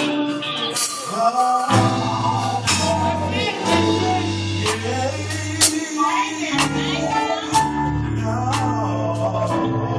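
Gospel song: singing over held bass notes and a steady beat of drum hits, about one a second.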